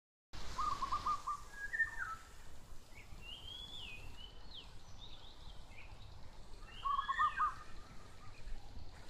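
Birds singing: a quick run of repeated notes about half a second in and again about seven seconds in, with higher whistled, gliding calls between them.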